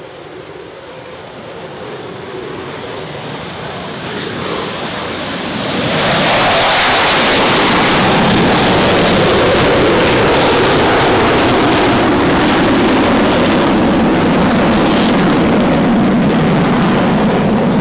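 A rushing noise that builds for about six seconds, then jumps suddenly to a loud, steady jet roar from an F/A-18F Super Hornet's engines.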